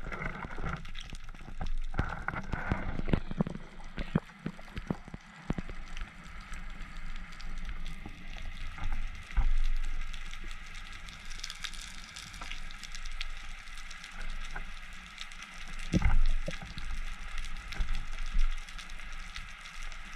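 Underwater sound picked up through a camera's waterproof housing: a dense, continuous crackle of tiny clicks, with several louder knocks and thumps, the loudest about 16 seconds in.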